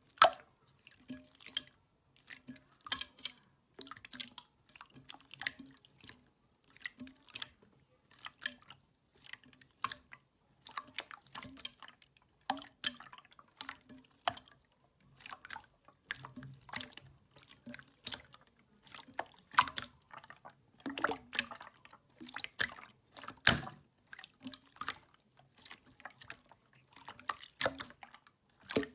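Slime being squeezed and pressed by hand, making irregular sticky clicks and wet pops, a few each second.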